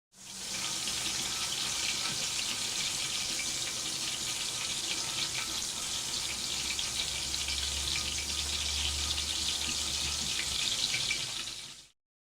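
Water running steadily, as from a kitchen tap into a sink: a continuous hiss with fine splashing crackle and a low rumble in the middle, fading in at the start and out about a second before the end.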